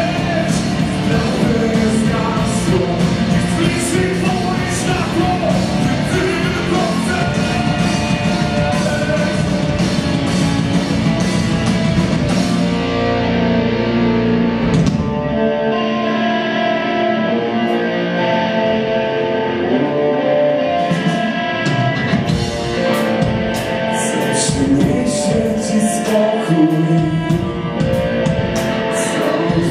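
Live rock band: a singer over electric guitars, bass guitar and drum kit. About halfway through the drums and deep bass drop out for a sparser guitar-and-voice passage, and the drums come back in some eight seconds later.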